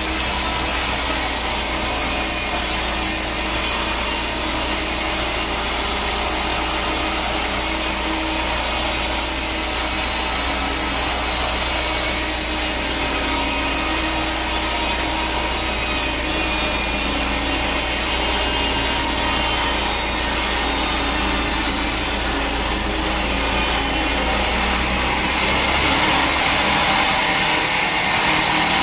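Sawmill saw cutting through a teak log: a steady, continuous sawing noise over the hum of the machine's motor. The low hum drops out about three seconds before the end.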